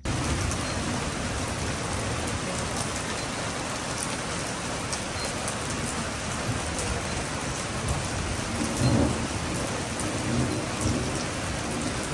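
Steady rain falling on a wooden deck, with scattered single drops ticking, and a brief low rumble about nine seconds in.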